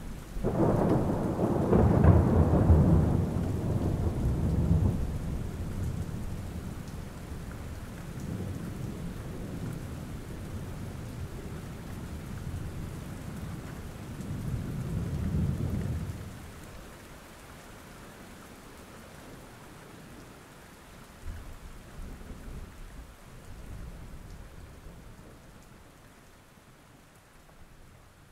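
Steady rain with rolling thunder: a long heavy rumble in the first few seconds and another swell about halfway through, after which the storm quietens and fades out.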